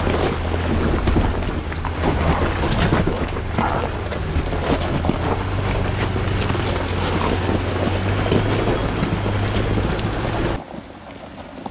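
Wind buffeting the microphone over the steady low drone of an off-road 4x4's engine. The sound drops away abruptly near the end.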